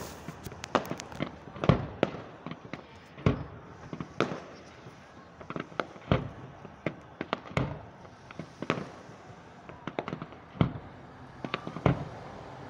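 Aerial fireworks going off: a run of sharp bangs and pops at irregular intervals, some coming in quick clusters.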